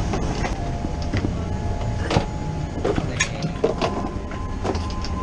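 Steady low mechanical rumble with scattered light clicks and knocks, and a faint steady whine coming in about halfway through.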